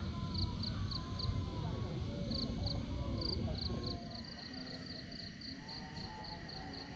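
Crickets chirping, high and evenly spaced: short runs at first, then steady at about four chirps a second. Under them, distant voices and a low rumble fade out about four seconds in.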